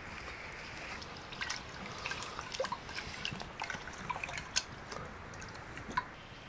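Liquid gurgling and dripping: many small irregular plops and plinks, busiest from about a second in until near the end.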